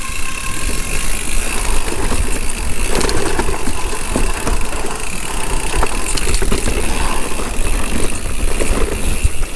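Mountain bike descending a rough downhill trail at speed: wind buffeting the microphone in a heavy low rumble, with the frame and parts rattling and knocking over the bumps.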